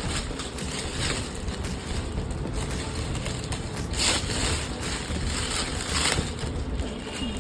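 Packaging being handled, a continuous rustling and crinkling with louder crinkles about four and six seconds in.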